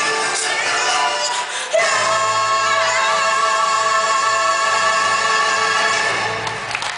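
Live stage-show music with a choir of voices singing, ending on a long held chord that fades near the end.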